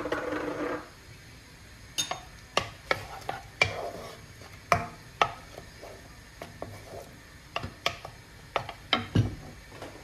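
A metal spoon scraping butter into a ceramic-coated frying pan of tomato purée, then a wooden spatula stirring it in, knocking and scraping against the pan in an irregular string of sharp knocks.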